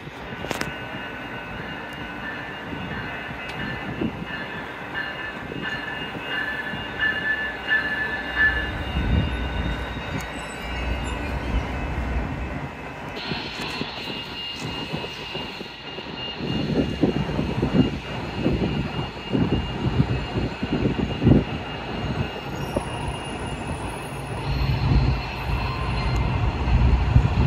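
Coaster commuter train led by a Siemens Charger diesel-electric locomotive approaching and pulling in alongside the platform. Its low rumble builds from about eight seconds in, and there are steady high squealing tones through much of it. From about the middle on, the wheels clatter over the rails.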